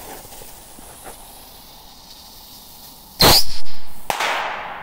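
Small firework rocket: a steady hiss from its lit fuse, then about three seconds in a loud burst as it fires, a second sharp burst a second later, and a hiss that drops in pitch and fades.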